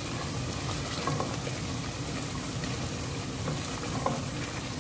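Thick onion-and-tomato masala sizzling gently in an aluminium pot as it is fried on low heat until the oil separates, stirred with a wooden spatula. A couple of light scrapes or knocks of the spatula come about a second in and again near the end.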